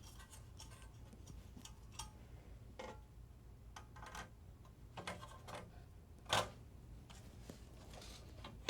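Light clicks and taps of a PS5's internal metal plate being handled and seated onto the console, with one sharper click about six and a half seconds in, over a low steady hum.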